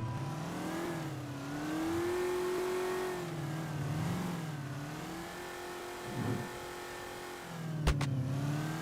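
A car engine revving up and down in slow waves, its pitch rising and falling about every second and a half, with a sharp click near the end.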